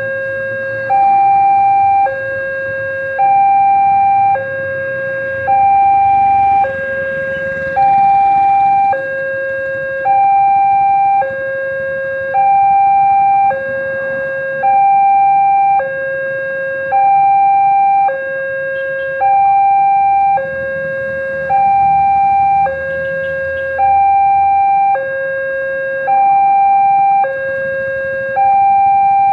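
Railway level-crossing warning alarm sounding its two-tone signal: a lower and a higher tone alternate, each about a second long, repeating steadily. This is the warning that the barriers are down and a train is due.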